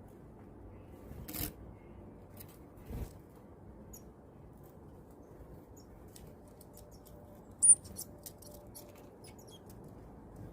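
A small bird: two soft knocks about a second and a half and three seconds in, then one short, sharp, high chirp about three quarters of the way through, followed by a scatter of faint light ticks.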